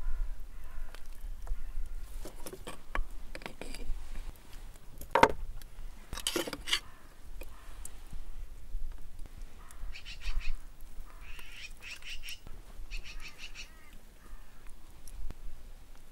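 Metal tongs clicking and scraping against the rim and inside of a metal milk can as cooked khorkhog meat is lifted out and set down, with wind rumbling on the microphone. A few short bird calls come about ten seconds in.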